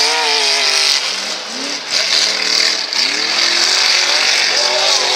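Modified mud-racing pickup truck engine revving hard. Its pitch falls away and climbs sharply twice, about one and a half and three seconds in, then holds high.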